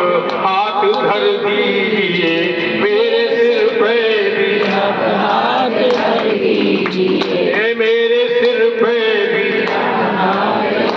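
A man singing a Hindi devotional bhajan into a microphone, with musical accompaniment.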